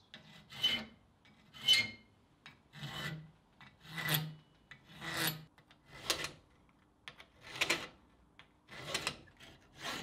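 Hand file rasping across a forged steel rod clamped in a vise, in about nine separate strokes roughly a second apart.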